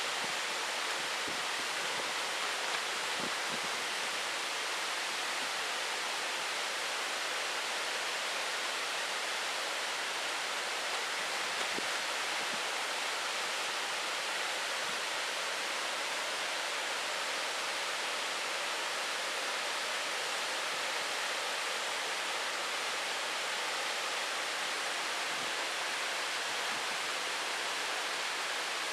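Waterfall running full after heavy rain, a steady, even rush of falling water.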